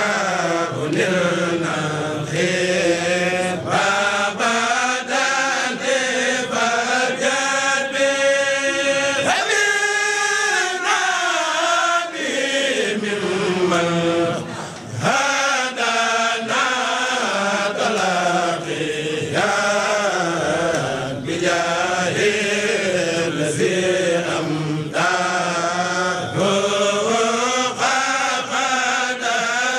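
A khassida, Arabic devotional verse of the Mouride brotherhood, chanted in long melodic phrases that bend and glide in pitch.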